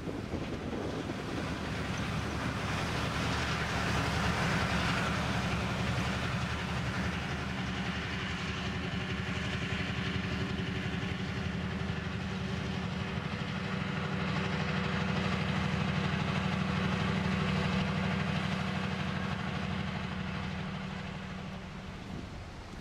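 A tugboat's diesel engine running with a steady low, rhythmic throb. It grows louder over the first few seconds, holds, then fades near the end.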